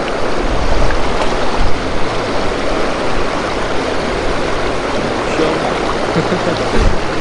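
Steady rush of stream water flowing over rocks, with a few low bumps in the first two seconds.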